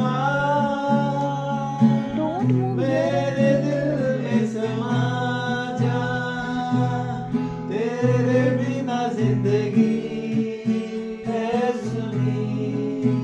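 Men singing a Hindi Christian worship song in long held notes, accompanied by an acoustic guitar.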